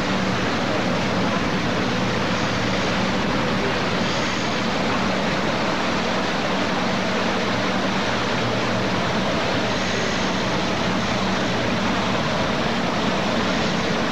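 Boat under way: a steady engine drone mixed with the even rush of water.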